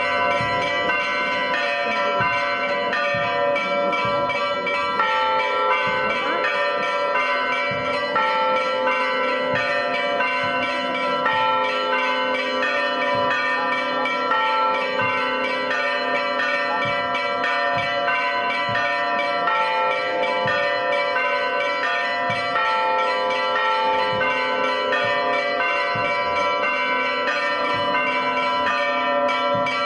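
Church bells pealing without pause, several bells ringing at once in a steady, overlapping peal.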